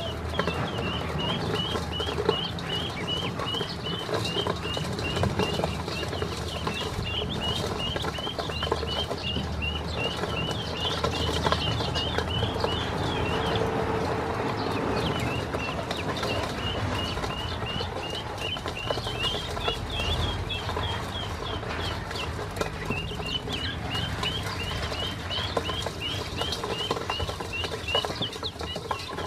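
Ducklings peeping in a rapid, near-continuous series of short high calls while they scrabble and peck at feed in a stainless steel bowl, their feet and bills scuffling against the metal. The peeping thins out for a few seconds around the middle.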